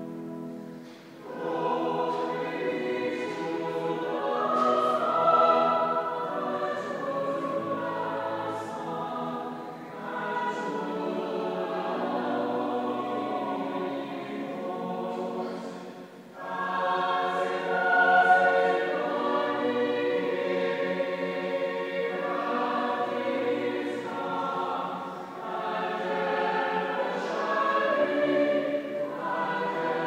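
Church choir singing in harmony, entering about a second in and pausing briefly between phrases.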